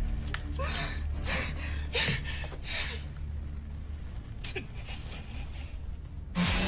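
A person breathing in a run of sharp, ragged gasps over a low steady drone. A sudden louder noise cuts in near the end.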